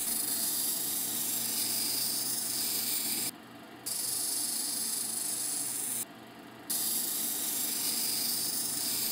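Tiger eye stone being wet-ground against a spinning 600-grit diamond wheel on a cabbing machine: a steady hiss that cuts out briefly twice, with the machine still running underneath.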